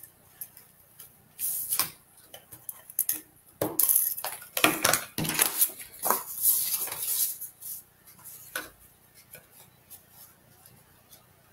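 Paper and card rustling with the clatter of small craft tools being handled on a work desk, busiest from about four to seven seconds in, then dying down.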